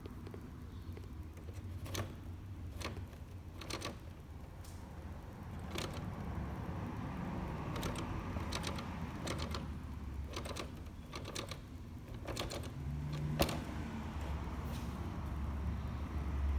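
Irregular sharp clicks and taps, one every second or so, over a low steady rumble.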